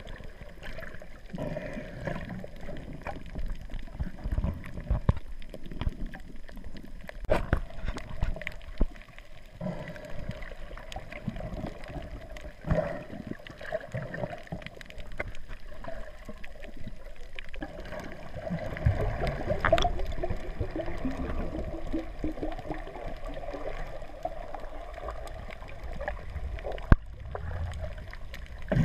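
Muffled underwater water sound heard through a GoPro camera's waterproof housing: steady sloshing and gurgling with scattered sharp clicks, and one sharp knock near the end.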